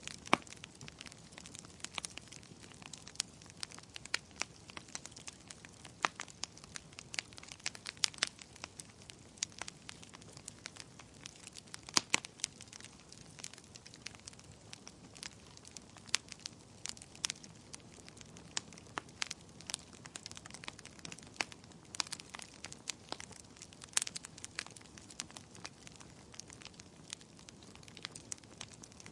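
Wood bonfire crackling: irregular sharp snaps and pops, a few of them much louder (one stands out about twelve seconds in), over a soft, steady background hiss.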